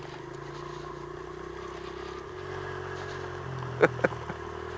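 Small pit bike engine running steadily while riding at low speed, its pitch dropping slightly about halfway, with a couple of sharp clicks near the end.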